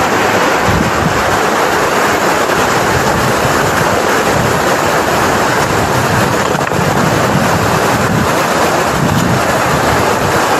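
Swift river water rushing over large boulders: a loud, steady roar.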